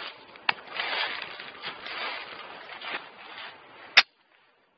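A few seconds of rustling, then a single sharp crack about four seconds in: a .22 LR shot from a Smith & Wesson 22A target pistol.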